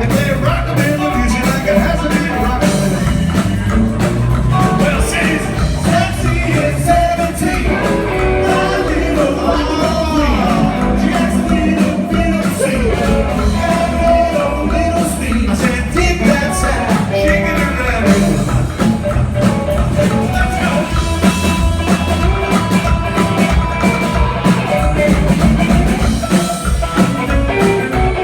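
Live rockabilly band playing: electric guitar, upright bass and drums, with vocals.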